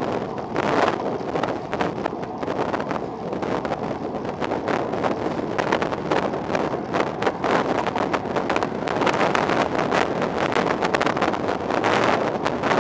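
Wind rushing over the microphone of a camera on a moving bicycle: a loud, steady rush of noise with rapid gusty flutter.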